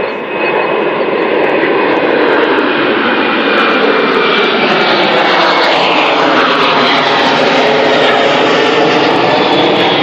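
Jet airliner passing close by, its engine noise swelling about two seconds in and then holding loud and steady, with the pitch of its tones sliding as it goes past.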